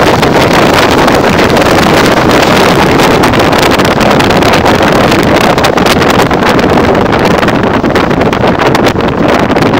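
Loud, constant wind buffeting on the microphone in an open-top car driving at speed, over the rush of the Mustang's running gear and engine.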